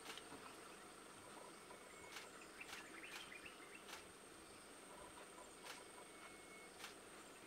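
Near silence: faint bush ambience with a steady high-pitched insect drone, a few sharp clicks and brief chirps about three seconds in.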